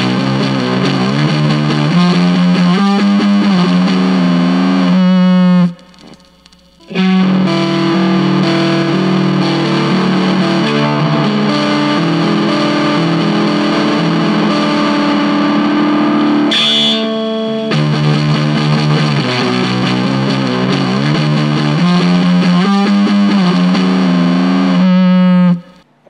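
Electric guitar played through a Sun Fuzz (Fuzz Face-style) clone pedal, a looped riff with a distorted fuzz tone. The pedal runs first with a BC238 silicon NPN transistor, then a BC183. The guitar stops for about a second roughly six seconds in, then the same riff resumes.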